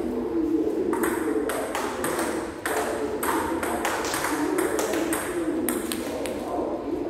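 Table-tennis rally: the celluloid-type plastic ball clicking sharply off the bats and the table in quick alternation, often two clicks close together, one side playing with a pimpled-rubber bat.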